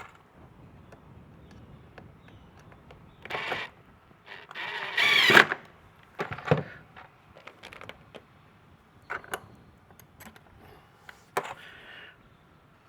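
A cordless drill-driver runs in short bursts, the longest about five seconds in, driving screws into an RV compartment latch, with clicks and clatter of parts being handled between.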